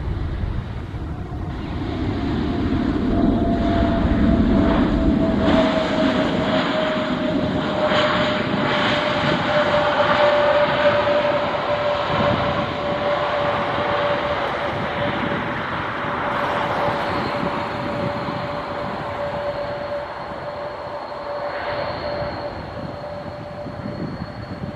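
Jet airliner passing close by: engine noise that builds, is loudest a few seconds in, then slowly fades, with a whine sliding slowly down in pitch.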